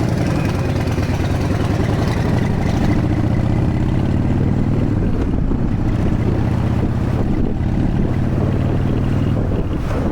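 Harley-Davidson Evolution V-twin engine running at a steady pace under way, its low, even note holding level throughout.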